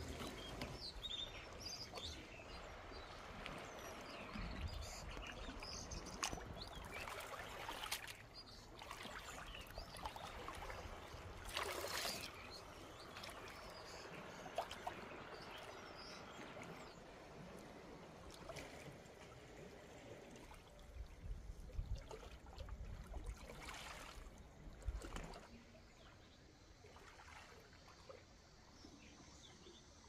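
Calm sea water lapping and trickling against shoreline rocks, with scattered small clicks, occasional low rumbles and one louder brief rush about twelve seconds in. It gets quieter over the last few seconds.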